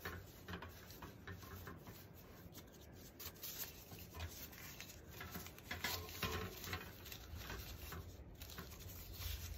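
Faint rustling and crinkling of thin plastic tablecloth strips being tied onto a wire wreath frame and pushed snug along it, with scattered small irregular ticks.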